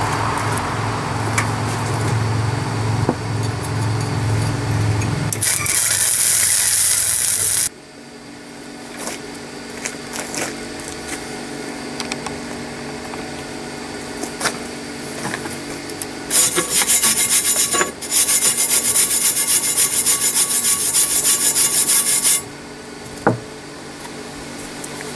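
Harsh rasping and scraping on a welded steel patch clamped in a bench vise. The noise is steady for the first eight seconds, drops to a quieter stretch with a faint hum, then comes back as a loud, fast-pulsing rasp for about six seconds before cutting off.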